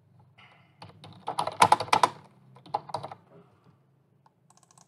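Typing on a computer keyboard: a quick run of keystrokes, densest about a second and a half in, then a few faint clicks near the end.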